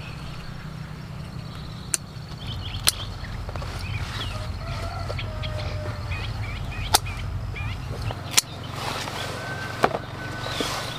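Outdoor rural ambience: short chirping bird calls over a low steady rumble, broken by about six sharp, isolated clicks.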